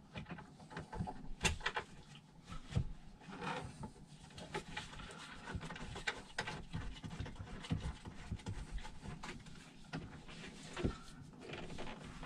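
Scattered light knocks, clicks and rubbing from hands working behind the back of a reclining loveseat, threading and hand-tightening the thumb screws that hold its back piece.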